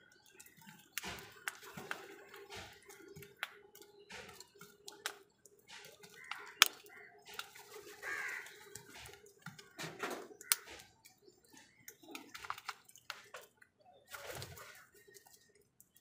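House crows pecking at food in a plastic bowl: scattered light taps and clicks of beaks, with one sharper snap about six and a half seconds in.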